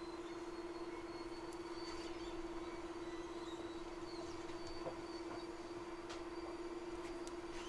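Steady, faint hum of a hot air rework station's blower running, with one steady tone and a slight pulse. A few faint light clicks are heard over it.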